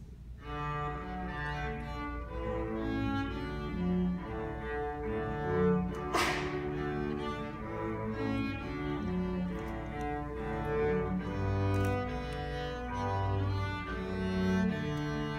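Two cellos playing a bowed duet, starting about half a second in, with notes changing steadily. A short noisy burst cuts across the music about six seconds in.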